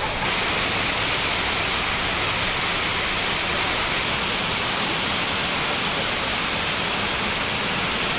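Multnomah Falls rushing: a steady, even roar of falling and running water, with no breaks.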